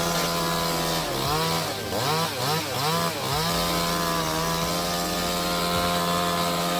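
Chainsaw running at high revs, its pitch dipping briefly five or six times between about one and three and a half seconds in, then holding steady.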